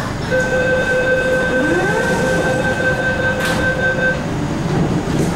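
MTR K-Train door-closing warning: a steady tone sounding for about four seconds over the stationary train's hum, with a single knock as it nears its end.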